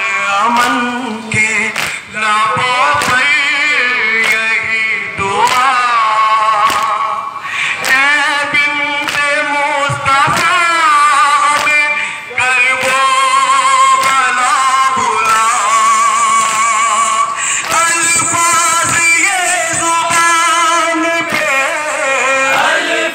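Male voices chanting a nauha, a Muharram lament, with wavering melodic lines. Regular chest-beating (matam) slaps keep time beneath it, about one every three-quarters of a second.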